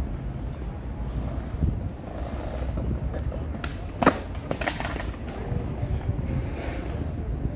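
City street ambience: a steady low rumble with a few sharp clacks, the loudest about halfway through.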